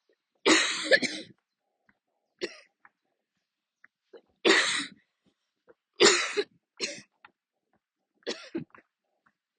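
A woman's coughing fit, during an attack of her lungs: about eight coughs, singly and in pairs, with a second or two of quiet between the spells.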